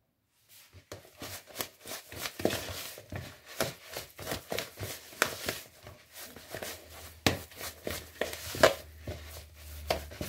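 A hand kneading crumbly oat-flour cookie dough in a bowl: irregular soft squishing, pressing and scraping sounds with light knocks against the bowl, starting about half a second in.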